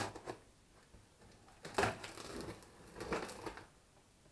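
Knife slitting the packing tape on a cardboard box: a sharp click, then about two seconds in and again a second later, scratchy slicing strokes through the tape and cardboard.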